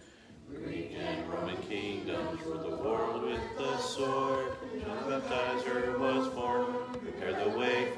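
A class of children reciting memorised Bible text aloud in unison, a chant-like group recitation that starts up after a brief pause in the first half-second.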